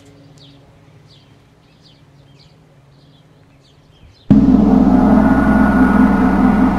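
A few short bird chirps over quiet outdoor background, then about four seconds in a loud gong-like closing sting starts suddenly: a rich chord that rings on steadily.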